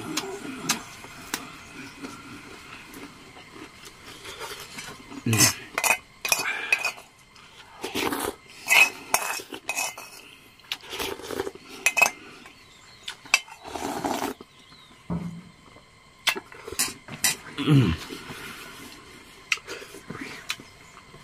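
A metal spoon clinking and scraping against a metal bowl during a meal, with noodles slurped from the bowl. Twice, at about 5 s and near 18 s, a short low sound falls in pitch.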